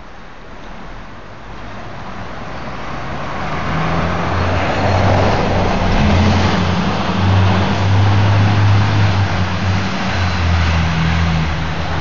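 Fire truck approaching: its engine and tyre noise grow louder over the first few seconds, then hold as a loud, steady, low engine rumble.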